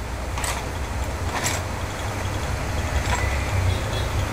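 Steady low rumble of background noise, with two faint clicks about half a second and a second and a half in as a handheld digital multimeter and its probe leads are handled on the bench.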